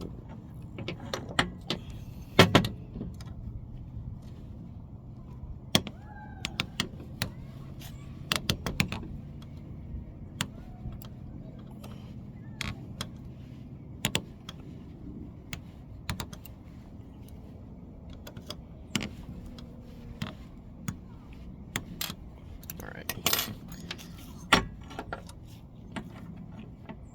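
Scattered small clicks and metallic taps as a screw is undone from the bottom of an airsoft rifle's hop-up unit and the small parts are handled, over a low steady hum.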